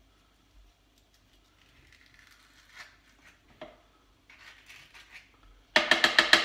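Plastic avocado scoop scraping soft avocado flesh out of its skin in short, soft scrapes. Near the end comes a quick run of about half a dozen loud, ringing taps as the tool is knocked against the rim of the food processor's plastic bowl to shake the avocado off.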